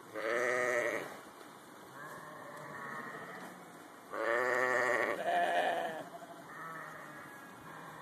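Sheep in a large flock bleating: three loud, wavering bleats, one about a second in and two close together around four to six seconds in, with fainter bleats from farther off in between.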